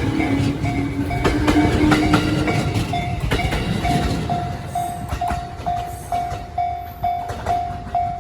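JR Sagami Line electric train running over a level crossing, its wheels clattering on the rail joints with a low tone rising slightly in pitch. The train noise fades over the first few seconds, while the crossing's electronic warning bell keeps ringing at about two dings a second.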